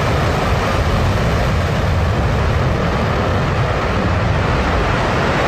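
New Shepard booster's BE-3 hydrogen-oxygen rocket engine firing in its landing burn: a loud, steady rumble with a hiss over it, which holds level without a break.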